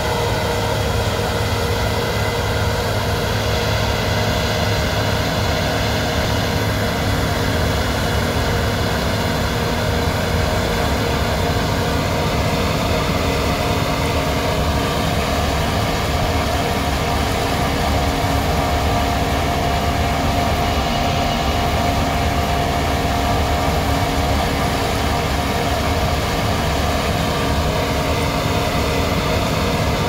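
Case IH combine harvester running steadily at working speed while unloading grain, a continuous machinery drone with several held tones that shift slightly partway through.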